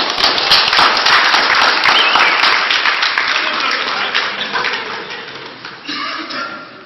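A small audience clapping, loudest at the start and dying away over about five seconds, with a voice briefly heard near the end.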